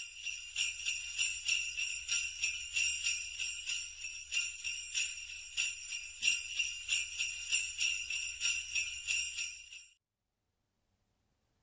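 Sleigh bells (jingle bells) shaken in a steady beat of roughly two to three shakes a second, stopping about ten seconds in.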